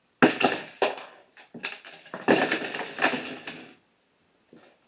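A tall built Lego figure being smashed: a loud crash of plastic bricks breaking apart, then more crashes and clattering as loose bricks scatter, ending about four seconds in.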